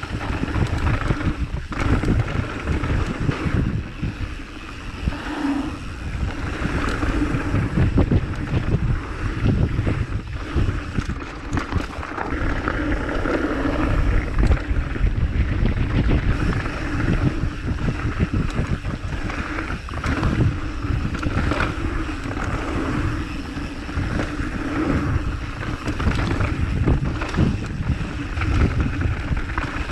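Wind buffeting the microphone in uneven gusts, a loud rumbling noise that rises and falls.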